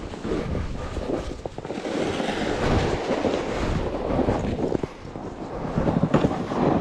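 A sled towed on a rope across packed snow and ice, a continuous rough scraping rumble with irregular knocks, mixed with footsteps crunching in the snow.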